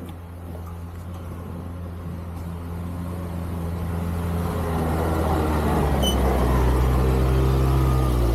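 A snow vehicle's engine running steadily, growing louder through the whole stretch as it comes closer or pulls harder, with a slight shift in pitch about two-thirds of the way in.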